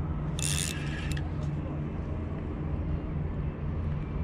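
Steady low rumble of distant road traffic, with a short burst of hiss about half a second in.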